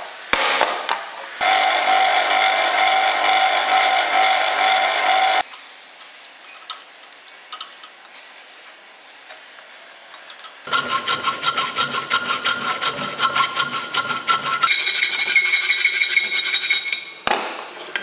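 A hammer taps a centre punch into a steel plate, then a drill press cuts into the steel plate with a hole saw. The cutting comes in stretches with a quieter pause between: first a steady ringing cut, then a fast chattering one.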